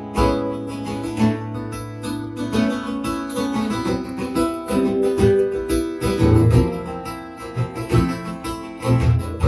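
Acoustic guitar strummed, playing the instrumental ending of a song.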